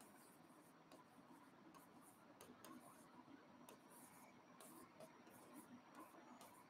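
Very faint taps and scratches of a stylus writing on an interactive touchscreen board, scattered through near-silent room tone.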